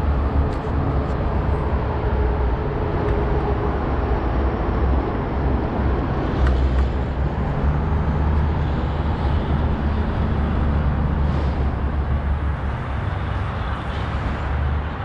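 Steady outdoor background noise: a loud low rumble with a broad hiss above it.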